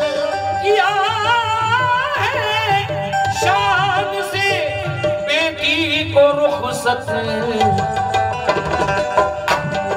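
Live ghazal music: tabla strokes under a melodic line full of quick, wavering ornaments.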